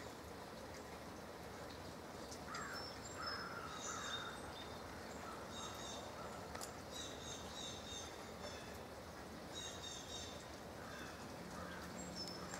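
Light misty rain falling, a faint steady hiss. Birds chirp repeatedly in short high clusters, with a few lower calls.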